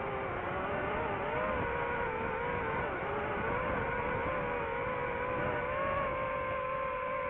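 Drone's electric motors and propellers whining steadily, the pitch wavering slightly up and down with throttle, over a rushing noise.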